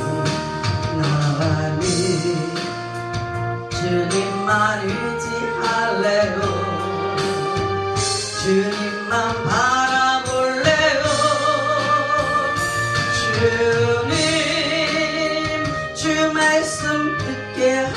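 A woman singing a Korean praise song into a microphone over instrumental accompaniment, her held notes wavering with vibrato.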